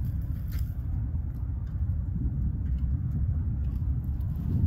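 Low, uneven rumble of wind buffeting the microphone, with the harbour tug's diesel engine working as it pushes the freighter.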